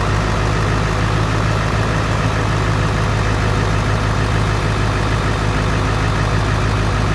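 Ford 7.3-litre V8 diesel engine idling steadily.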